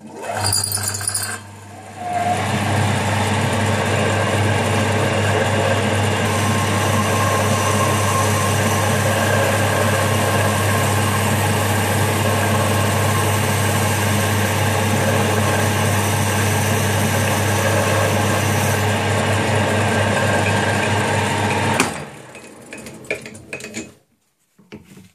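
Homemade metal lathe running under its electric motor with a steady hum while the cutter takes a test pass along a steel bar, checking that the headstock is now aligned with the ways. The lathe is switched off about 22 s in and winds down over a couple of seconds.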